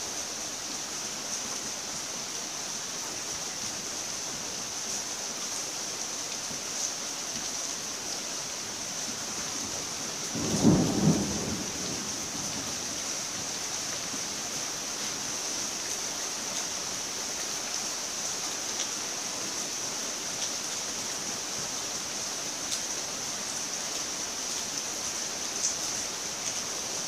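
Steady rain hiss, with a short low rumble lasting about a second roughly ten seconds in.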